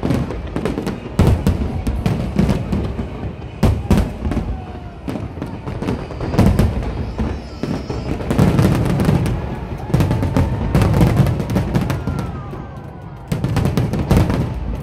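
Fireworks display: aerial shells bursting in a rapid string of sharp bangs over a low rumble. The bangs come densest about eight to eleven seconds in, ease off briefly, then a fresh volley starts near the end.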